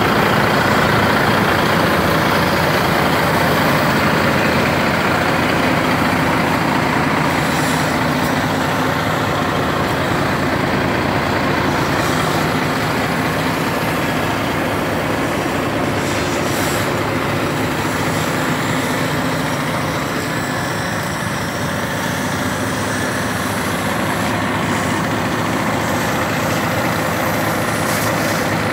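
Volvo FH16 550 truck's 16-litre straight-six diesel idling steadily.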